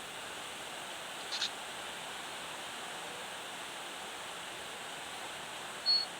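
A steady, even hiss of background noise with no voices, and a faint click about a second and a half in.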